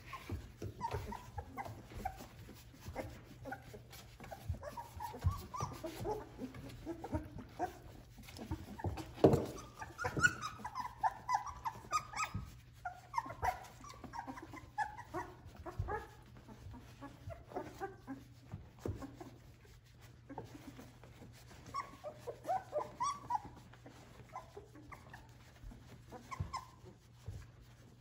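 Litter of three-week-old Australian Labradoodle puppies squeaking and whimpering: many short high cries, busiest in the middle and again near the end, with a few soft knocks.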